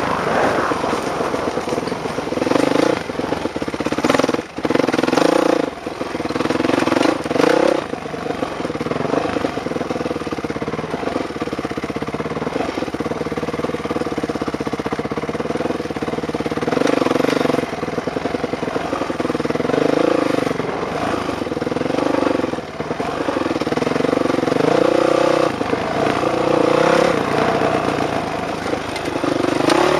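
Dirt bike engine running hard as it is ridden over a dirt track, its revs rising and falling with the throttle. The sound drops off briefly about four seconds in and again about two-thirds of the way through.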